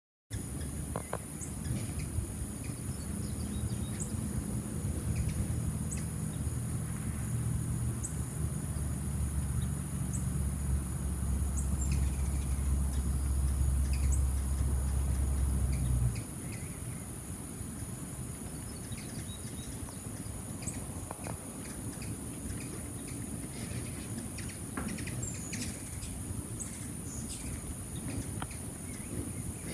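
Open-field ambience: a steady high-pitched insect drone with scattered faint bird chirps, over a low steady hum that cuts off abruptly about sixteen seconds in.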